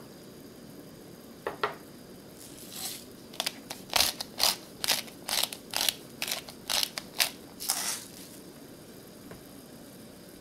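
Hand pepper mill grinding over a pot of broth: about a dozen short crunchy grinds, starting a couple of seconds in and stopping near the end, over a low steady hum.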